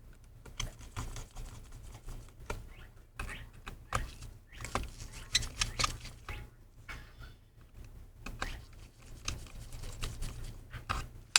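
Irregular small clicks, taps and scrapes of a precision screwdriver and tiny screws as screws are set and driven in to hold a laptop's Wi-Fi antenna down.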